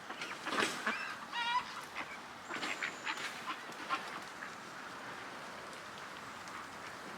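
Domestic ducks quacking, with one clear call about a second and a half in, among brief bursts of noise.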